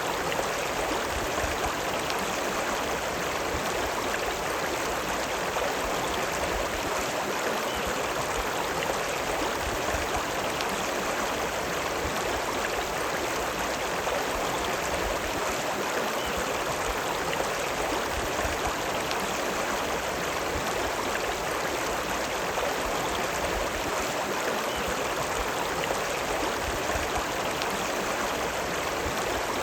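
River water running steadily: an even, unbroken rush of flowing water.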